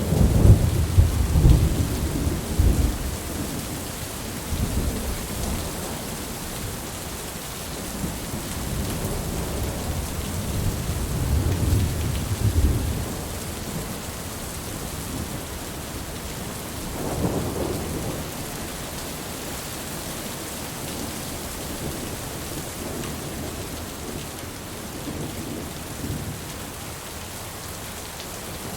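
Heavy, steady rain with rolling thunder. A loud clap at the very start rumbles on for about three seconds. A longer rumble then builds and stops abruptly a little before halfway, and a shorter roll follows soon after.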